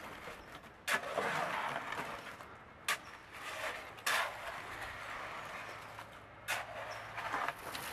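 A shovel scooping wet concrete and dumping it into a steel wheelbarrow: four scraping, sliding loads about one to two seconds apart, with a faint low hum underneath.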